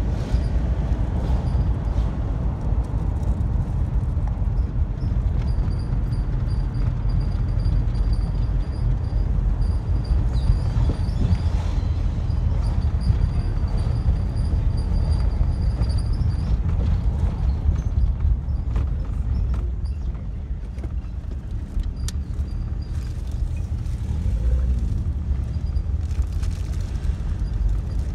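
Steady low rumble of a car's engine and tyres on the road, heard from inside the cabin while driving in traffic; it eases a little about two-thirds of the way through.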